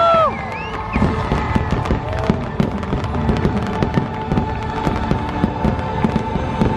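Fireworks going off in a rapid finale barrage, dozens of sharp pops and crackles, as the show's music stops on a held chord just at the start.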